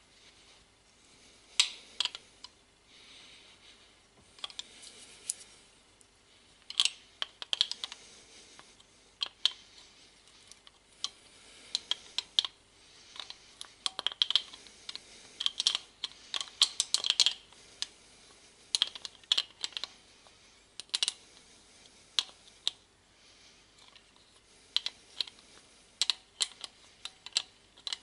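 Bursts of sharp metallic clicks from a ratchet ring spanner working a nut on the cast body of an old air blow gun during disassembly, with small metal knocks as the part and tools are handled. The clicks come in irregular runs with short pauses between them.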